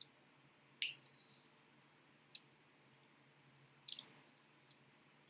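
Near silence broken by a few faint, short clicks: one about a second in, a smaller one midway, and a quick double click near the end.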